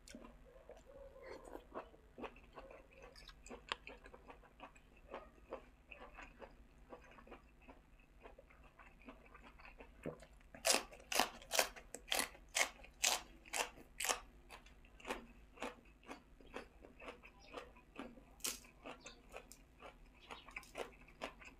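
Close-up eating sounds: soft, moist chewing for about ten seconds, then loud crisp crunches, about two a second for some four seconds, as raw morning glory (water spinach) stalks are bitten and chewed. One more loud crunch follows a few seconds later, then quieter chewing.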